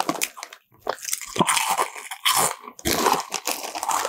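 Close-up crunching and chewing of 3D Doritos Three Cheese puffed corn chips in the mouth, in irregular crackly bites with brief pauses.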